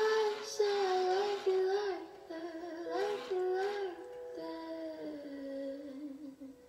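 Recorded song playing: a female voice singing a slow, smooth melody over held keyboard chords, fading lower near the end.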